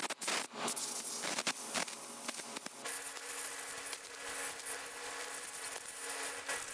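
Compressed-air blow gun hissing as it blows rinse water off cleaned carburetor parts. It comes in a few short blasts at first, then hisses more steadily from about three seconds in.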